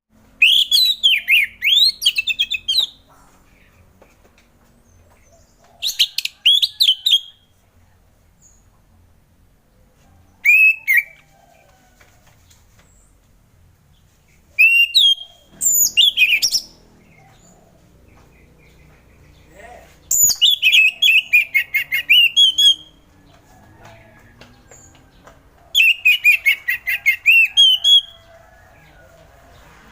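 Orange-headed thrush singing: about seven phrases of quick, varied warbling notes, each half a second to three seconds long, separated by pauses of a few seconds.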